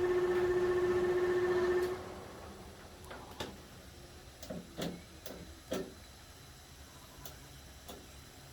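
Newly installed kitchen range hood's exhaust fan running loudly, a steady motor hum over the rush of air, then cutting off about two seconds in as the power is switched off. A few soft knocks and clicks follow.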